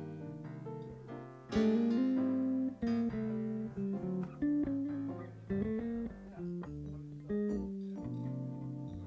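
Electric bass and keyboard playing together in a slow jam: held keyboard chords over bass notes. A louder chord comes in about a second and a half in.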